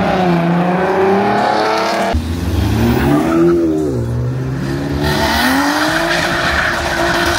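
Car engines revving, the pitch rising and falling several times, with tires squealing from about five seconds in.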